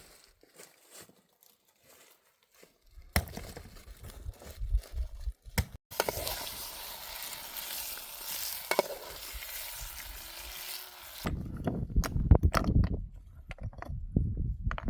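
Food sizzling and being stirred in a pan, heard in a few short cuts after a quiet start.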